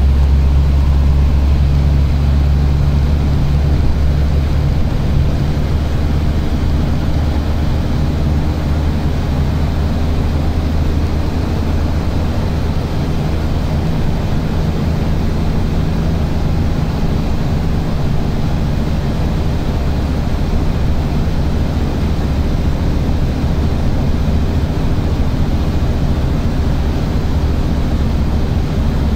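Steady low rumble of road and engine noise heard inside a moving vehicle.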